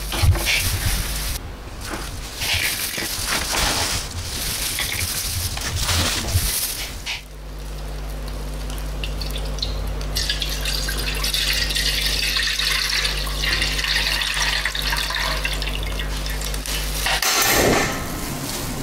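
Irregular clicks and scraping, then liquid poured in a steady stream into an aluminium wok for several seconds, ending in a short louder burst.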